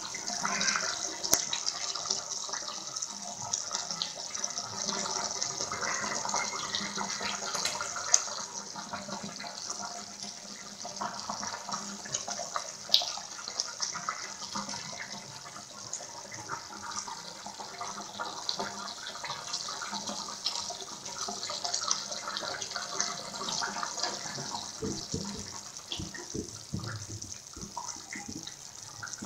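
Pot of Nellore fish curry bubbling as it simmers on the stove: a steady hiss with scattered small pops and crackles, and a cluster of deeper plops near the end.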